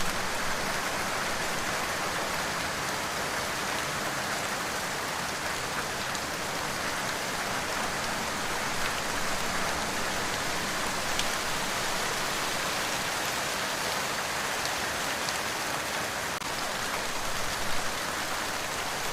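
Steady rain falling, a dense even hiss with occasional distinct drops ticking on a surface.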